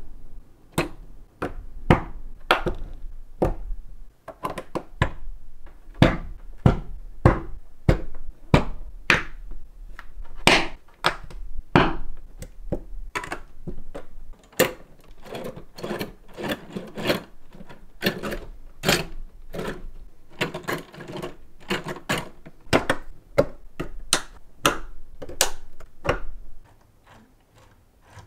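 Plastic Lego Technic pieces clicking, snapping and knocking as beams are pressed onto a rail over a chain track: an irregular, fast series of sharp clicks. The clicks stop shortly before the end.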